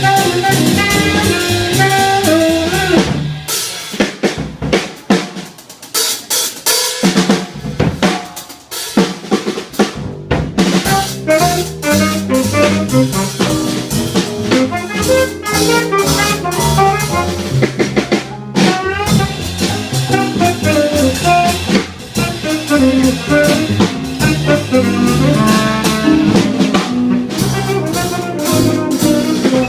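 Live small-group jazz with the drum kit to the fore: snare, rimshots and bass drum. For several seconds the drums play nearly alone, with the low end dropping out, before piano and bass come back in under them.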